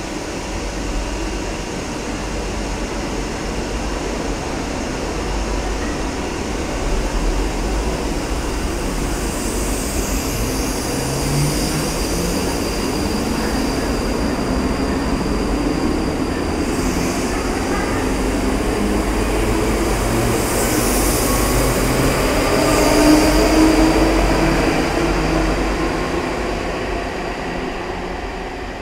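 ScotRail electric multiple-unit train pulling out of an underground platform. Its motors whine, climbing in pitch as it gathers speed, over a steady rumble of wheels on rail. The noise grows to its loudest about three-quarters of the way through, then fades near the end as the train leaves.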